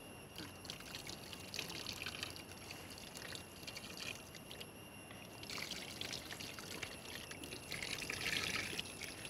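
Tamarind water being poured and trickling, softly and in uneven spells, over pieces of cut stingray as a souring marinade.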